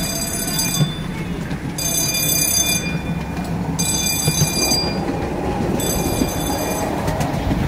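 Miniature railway passenger car rolling along its track with a steady low rumble. A high-pitched wheel squeal comes back about every two seconds and lasts about a second each time, four times.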